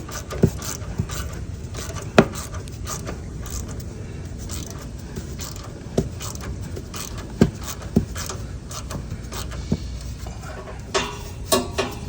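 Metal hand tools clinking and tapping against the starter and its fittings on a riding mower's engine. Scattered sharp clinks, several close together near the end, over a steady low rumble.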